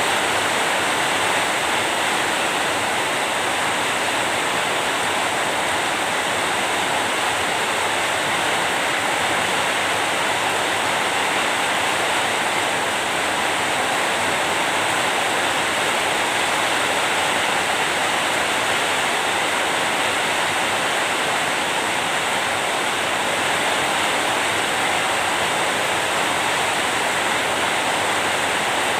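Steady heavy rain: a dense, even hiss of falling water with no distinct drops or thunder.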